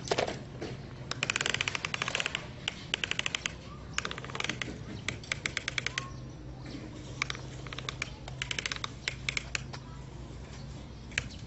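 Plastic toy excavator truck being pushed over sand, its plastic wheels and parts rattling in several quick runs of clicks, about a dozen clicks a second, that start and stop as it is shoved back and forth.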